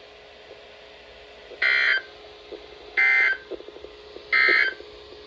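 NOAA Weather Radio SAME end-of-message data bursts: three short, buzzy digital bursts about 1.3 seconds apart, the code that marks the end of an emergency alert message.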